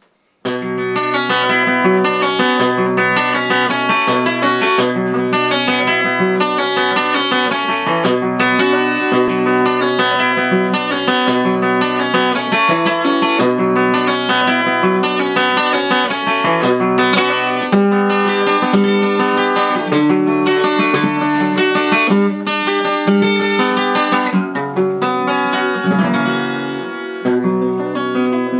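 Instrumental acoustic guitar music: a steady flow of picked notes over low bass notes, with no singing. It starts about half a second in.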